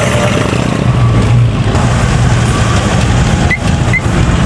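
Low, steady engine rumble of a classic Dodge Charger driving slowly past. Near the end come two short high chirps, about half a second apart.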